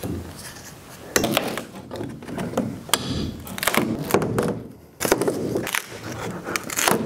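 Hammer and pry bar working the plywood lid of a wooden shipping crate loose: a series of wooden knocks and scraping, creaking wood, with sharp knocks about a second in and again about five seconds in.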